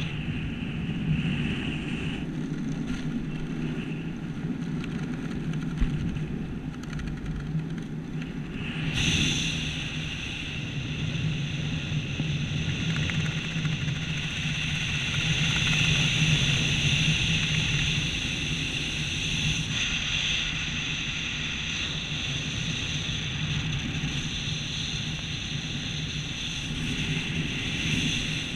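Steady wind rushing over the microphone during a descent under an open parachute canopy, growing brighter and hissier about nine seconds in.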